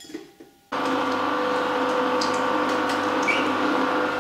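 Vertical slow juicer switching on about a second in after a brief clatter of fruit dropping into its feed chute, then running steadily with a hum as the auger crushes pineapple, apricots and strawberries, with a couple of short squeaks from the fruit being pressed.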